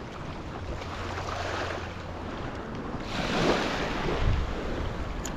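Ocean surf washing in, with wind rumbling on the microphone; a wave swells louder about three seconds in.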